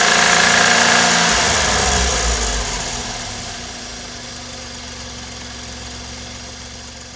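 Suzuki K6A three-cylinder turbo engine running with an abnormal noise, which the owner puts down to a burned engine. It is loud for about the first two seconds, then dies down gradually to a lower, steady running sound.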